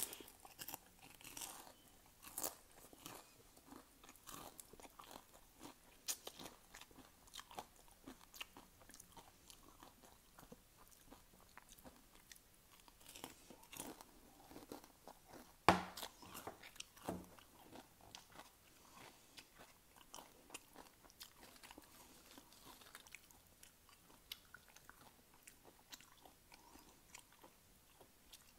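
A person crunching and chewing potato chips: a run of irregular sharp crunches, with one louder crunch a little past halfway.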